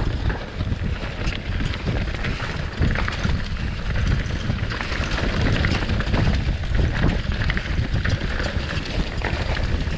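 Mountain bike riding fast down a dirt singletrack: tyres rolling over dirt, leaves and rocks, with the bike rattling and knocking over bumps throughout. Wind rumbles steadily on the microphone.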